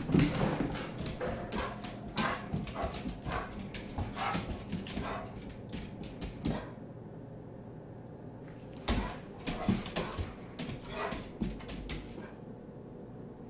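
Excited dog whimpering and yipping in short bursts, with many sharp clicks of claws and footsteps on a tile floor. The sounds stop for about two seconds midway, then resume.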